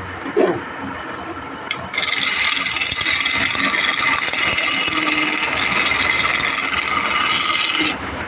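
Woodworking power tool running steadily, starting about two seconds in after some rattling and cutting off just before the end.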